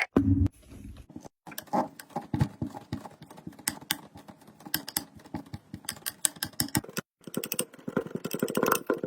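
White sand being worked by hand: rapid, irregular dry crackling and crunching clicks, in short edited segments that cut off abruptly. A short low thud sounds right at the start.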